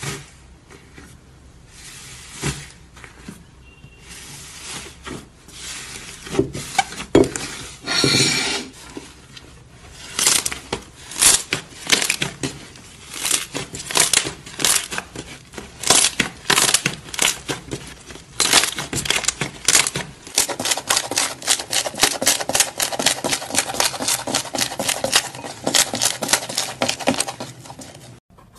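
Thick orange iceberg slime being pressed and kneaded by hand: its hardened crust cracks and crunches, and the slime crackles and pops in short repeated bursts as it is squeezed and folded. The crackling grows quicker and denser in the last several seconds.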